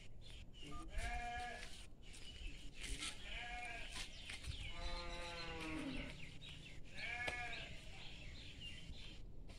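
Livestock bleating four times, each a wavering cry of up to about a second and a half.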